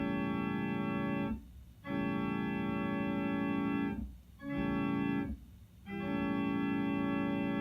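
Electronic keyboard playing a sustained organ-like chord imitating an old-cast Nathan P5 five-chime train horn. It is sounded in four blasts, long, long, short, long: the grade-crossing horn pattern.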